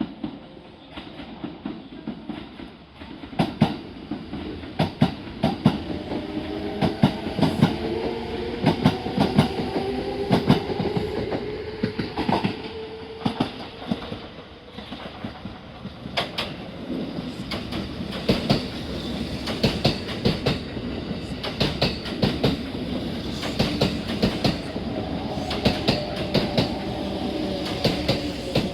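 Kintetsu electric train running on the line, its wheels clattering over rail joints in many sharp clicks. A hum of several tones slowly rises in pitch through the first half, then falls again near the end.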